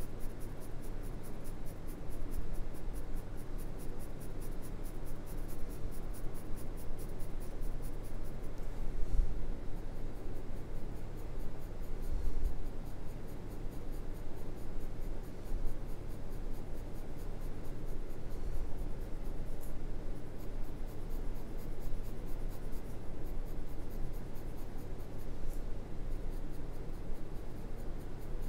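Graphite pencil shading on drawing paper: the lead scratching steadily in quick, even strokes.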